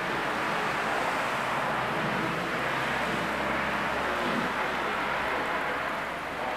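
Heavy downpour of rain making a steady hiss, with car tyres swishing through the flooded street.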